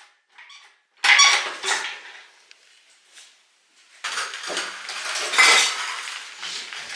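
Metal tools or parts clattering: a sharp metallic clank about a second in, a second one shortly after, then a continuous jangling clatter of metal from about four seconds in.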